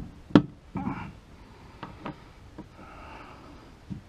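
Hands working the oil filter cover off a Zontes 310X engine: two sharp clicks half a second apart at the start, then a few lighter ticks, with a man breathing heavily.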